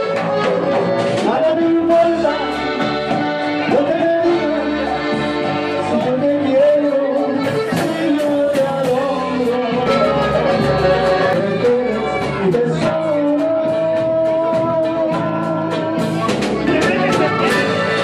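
Upbeat Latin dance music with an accordion carrying the melody over a steady beat.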